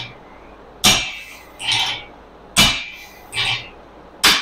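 Short sledgehammer striking an oil-quenched railroad spike clamped in a vise, metal on metal: three hard blows about 1.7 seconds apart, each followed by a fainter knock, as the spike is hammered over to break it in a break test.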